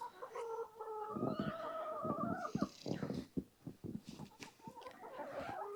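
Laying hens calling: one long drawn-out call for about two and a half seconds, then scattered clicks and rustling.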